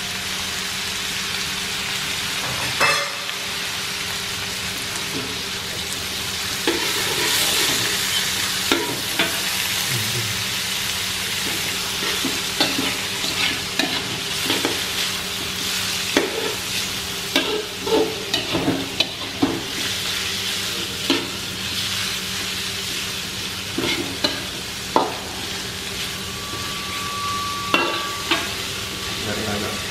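Diced chicken and shrimp sizzling in an aluminium wok, with a metal spatula scraping and clacking against the pan as the food is stir-fried; the knocks come thickest in the middle. A faint steady low hum runs underneath.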